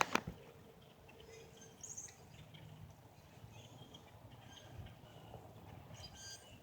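A flock of birds calling in the distance: many short, scattered chirps and calls over a faint outdoor background, with a brief loud rustle at the very start.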